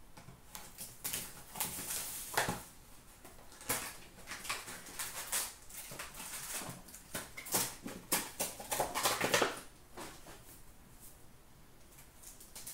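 Hands opening a cardboard box of hockey cards and tearing open the card pack wrappers: crinkling, rustling and short ripping sounds in irregular bursts, quieter near the end.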